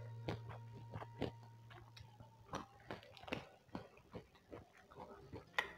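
A person chewing and biting food close to the microphone: irregular wet clicks and crunchy smacks, two or three a second, with a faint low hum under the first half.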